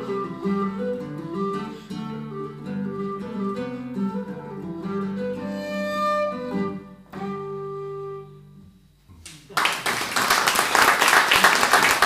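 A Susato whistle and guitar playing the last bars of a traditional Irish jig, ending on a held final note that fades away. The audience then breaks into loud applause, the loudest sound here.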